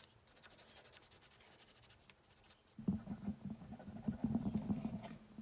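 Pencil shading on a paper postcard: faint light strokes at first, then about three seconds in a run of quick back-and-forth scratching strokes.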